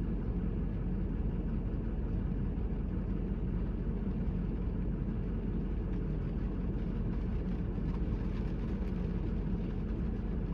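Steady low rumble of a car driving, with even road noise and no change in pitch.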